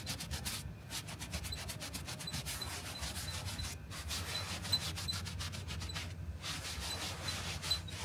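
Small hand brush scrubbing a cushion's upholstery in quick back-and-forth strokes, working spray-on OxyClean into a stubborn stain, with a few brief pauses.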